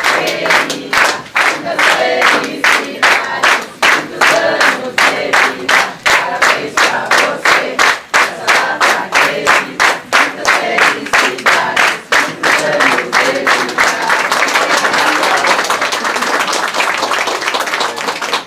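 A crowd of guests singing a birthday song together while clapping in time, about three claps a second. Near the end the rhythmic clapping gives way to steady applause.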